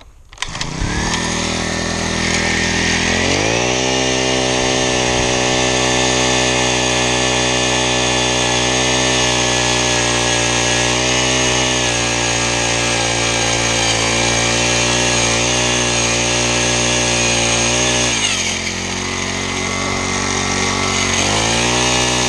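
Gas-powered Eskimo ice auger drilling through lake ice, its small engine revving up in the first few seconds and then running steadily at high speed under load. About eighteen seconds in the engine drops lower, then it revs up again near the end.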